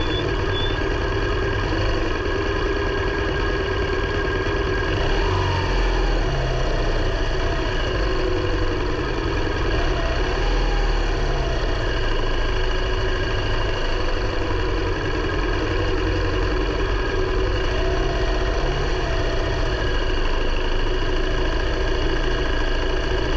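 Vehicle engine running steadily on the move, its pitch shifting slightly now and then, with a constant low rumble.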